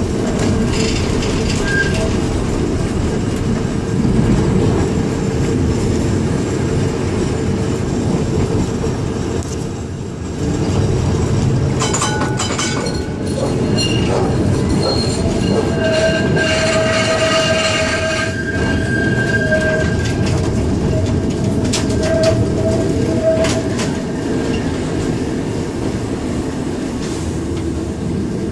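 Vintage tram running on rails, heard from the driver's front platform: a steady rumble, a cluster of clicks about twelve seconds in, then a steady high wheel squeal for several seconds from about the middle on.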